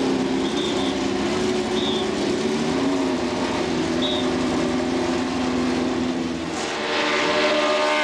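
Formula 1 car engines running at steady revs. About six and a half seconds in, a louder, higher-pitched engine comes in and its pitch drops near the end as it passes.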